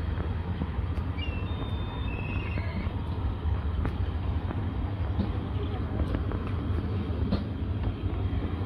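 Wind rumbling steadily on the microphone outdoors, with faint background voices.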